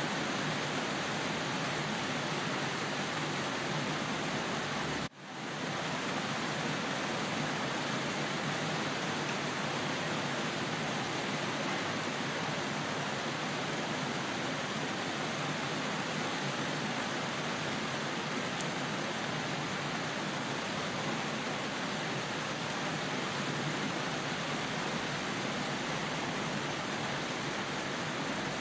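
Steady rain, an even hiss that cuts out for an instant about five seconds in and then resumes.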